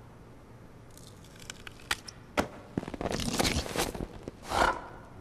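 Cartoon sound effects: after a quiet start, two sharp clicks, then rustling, crunching noise and a louder swell near the end.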